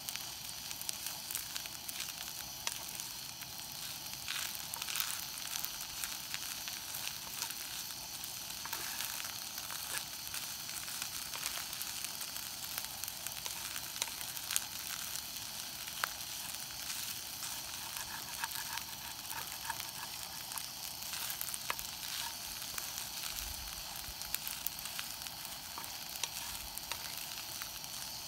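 Fried rice and lettuce sizzling steadily in a hot skillet on a gas camp stove while being stir-fried with a wooden spatula, with many small clicks scattered through the sizzle.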